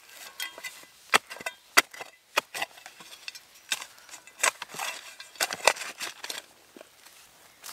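A small shovel digging into forest soil: irregular sharp chops and scrapes as the blade bites into the earth and loose dirt is scooped out.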